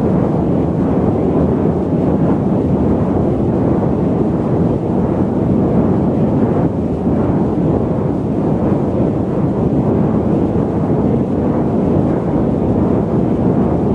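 Steady low rumble of an airliner's cabin in cruise: engine and airflow noise, deep and even, with little hiss.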